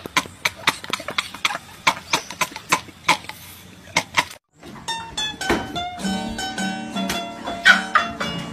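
Men laughing hard in rapid, repeated bursts, about five a second. About halfway in this cuts off to a moment of silence, and plucked guitar-like string music starts.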